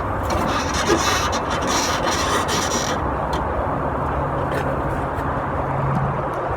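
A spare-tire carrier winch under an RV being hand-cranked counterclockwise to lower the spare, giving a rasping scrape for about the first three seconds. A steady low hum comes in from about four seconds in.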